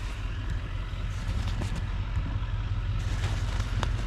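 A steady low rumble of an idling vehicle engine, with faint crinkling of paper towels.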